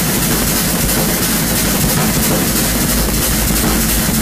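Harsh noise music: a loud, dense wall of distorted noise covering every pitch over a heavy low rumble, holding steady.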